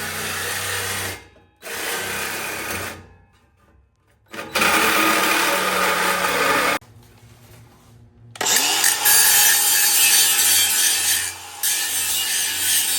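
A power tool cutting metal exhaust tubing in four separate runs, each a loud hiss that starts and stops, the longest near the end.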